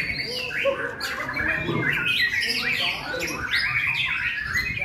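White-rumped shama (murai batu) singing a rapid, varied song of whistles and chattering phrases, with no pauses.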